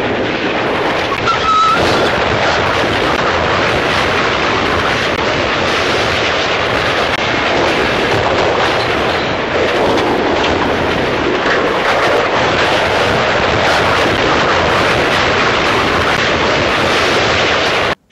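Old black-and-white film soundtrack of a steam train running and a train being derailed: a loud, dense, unbroken rush of noise, with a brief high whistle-like tone about a second in.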